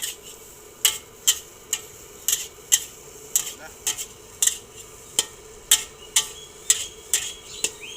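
Metal spatula striking and scraping a wok as nasi goreng is stir-fried, about two sharp ringing clanks a second, over a light sizzle.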